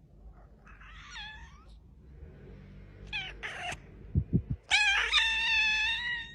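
Kitten meowing while left alone, crying for its absent owner: a faint meow about a second in, two short meows around three seconds, then one long drawn-out meow near the end. Two low thuds come just before the long meow.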